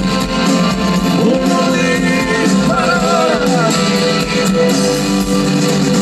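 Italian folk-rock band playing a song live through a stage PA, with acoustic guitar, bass guitar, keyboards and electric guitar over a steady beat.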